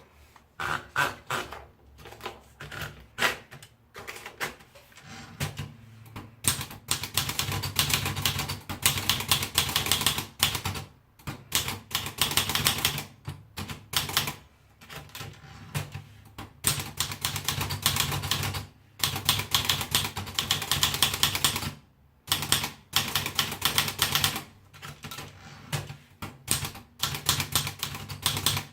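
Olivetti Lettera 32 manual portable typewriter being typed on: a few scattered keystrokes at first, then fast runs of key strikes from about six seconds in, broken by short pauses every few seconds.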